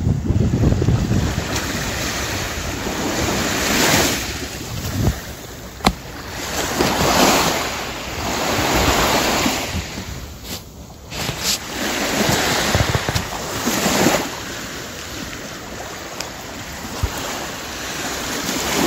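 Small sea waves washing up onto a sandy beach and drawing back, the hiss of the surf swelling and fading every few seconds, with wind buffeting the microphone. A single sharp click comes about six seconds in.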